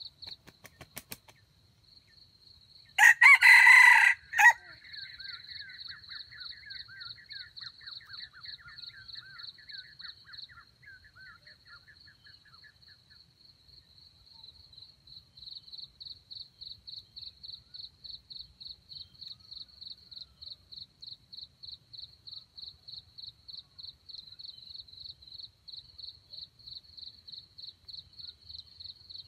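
A junglefowl rooster crows once, a short loud crow about three seconds in, after a brief flutter of wings. Insects keep up a steady, fast-pulsing high trill.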